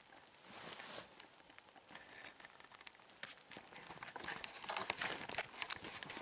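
Tall dry grass and clothing rustling and swishing as people push through it on foot, with irregular crunchy steps.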